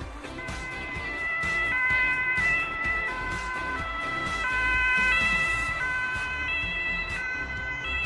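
Emergency vehicle's German two-tone siren (Martinshorn) alternating between a high and a low note about every 0.7 seconds. It swells louder and fades a little twice as it passes.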